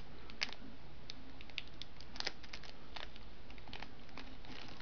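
Fingernails picking and scratching at the plastic shrink wrap on the edge of a Blu-ray case, an irregular scatter of faint small clicks and ticks.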